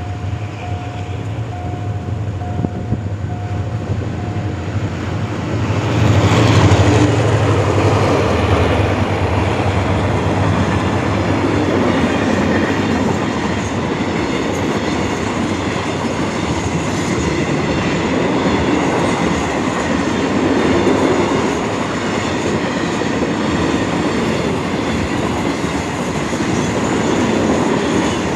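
A diesel-hauled passenger train passes a level crossing at speed. A repeating warning tone sounds during the first few seconds, then the locomotive's engine drone sweeps by about six seconds in. After that comes a long run of coaches clattering over the rail joints.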